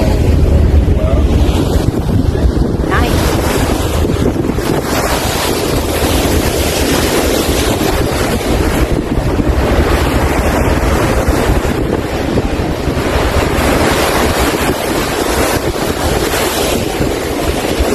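Wind buffeting the microphone on the deck of a moving ferry, over the steady rush of water along the hull.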